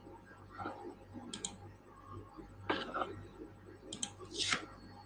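Several faint clicks of a computer mouse, spread a second or so apart.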